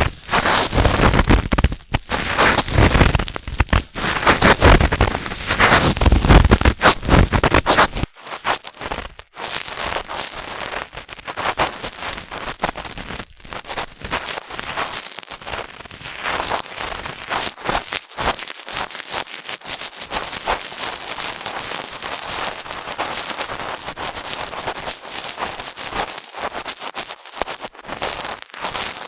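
Cotton swab rubbing and scraping in the ear of a binaural microphone: close, crackly scratching. About eight seconds in it becomes lighter and thinner, losing its low rumble.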